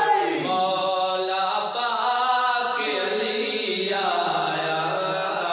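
A man's voice chanting a devotional Urdu recital (qaseeda/manqabat), drawing out long held notes that waver and bend slowly in pitch.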